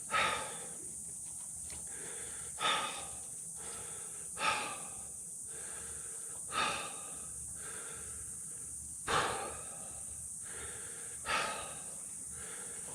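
A man huffing and puffing from heavy exertion: about six hard breaths, roughly one every two seconds, as he strains to lift a heavy hydraulic lift ram.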